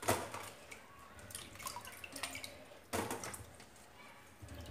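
Dates being washed by hand in a steel bowl of salted water: water splashing and dripping as a hand stirs them and lifts handfuls out into a mesh strainer, with two louder splashes, one at the start and one about three seconds in.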